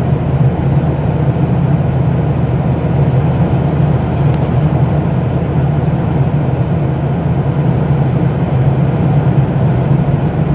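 Steady drone of an airplane in flight, heard inside the cabin: engine and airflow noise, a constant low hum with an even hiss above it.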